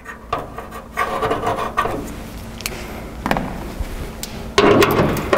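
Hand-tool work on the stock hood latch under a raised car hood: scraping and rubbing with a few sharp clicks, the scraping getting louder near the end.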